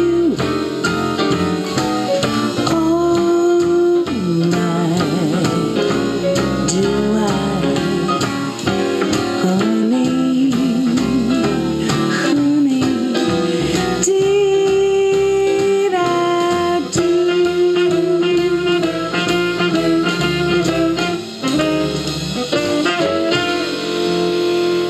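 A jazz-blues recording playing through a JBL Paragon loudspeaker, with a lead line of long held notes over the band's accompaniment.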